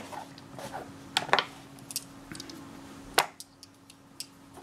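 Geomag magnetic rods and steel balls clicking as they snap together and tap on a wooden table: several sharp clicks, two close together just over a second in and the loudest about three seconds in.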